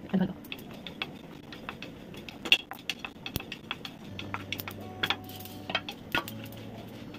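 A wooden spatula stirring dry chana and urad dal in a hot metal pan, giving irregular light clicks and scrapes. A few louder knocks come about two and a half, five and six seconds in. Near the end, dry red chillies and spices are tipped into the pan from a brass plate.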